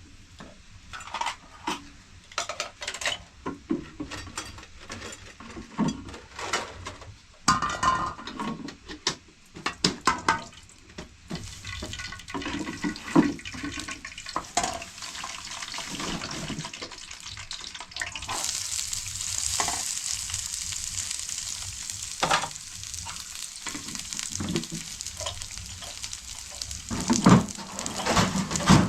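Pots and utensils knocking and clinking, then about two-thirds of the way in a steady frying sizzle starts suddenly, with stirring knocks over it.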